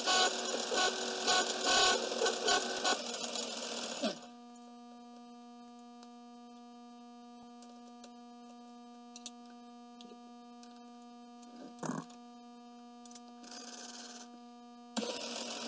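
Vintage Bertram metal lathe running, with a hand tool scraping against the spinning workpiece in repeated pulses; about four seconds in the lathe is switched off, leaving a low steady hum. A few clicks and a knock follow as the chuck is worked with its key, and the lathe starts up again near the end.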